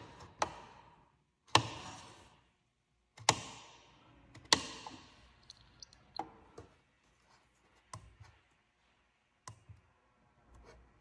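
A series of about eight sharp clicks and knocks at uneven intervals. The first four each trail off in a fading hiss lasting about a second, and the second and fourth are the loudest.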